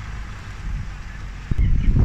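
Off-road 4x4 vehicle running at low revs, then a sudden loud, rough low rumble about a second and a half in.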